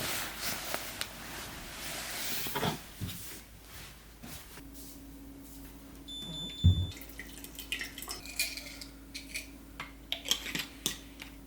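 Kitchen handling sounds: dishes and utensils clinking. There is a short high beep about six seconds in, a low steady hum through the second half, and one heavier thump just after the beep.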